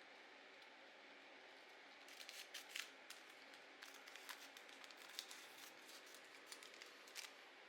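Scissors cutting paper: faint, irregular clusters of short snips over a steady low hiss, starting about two seconds in.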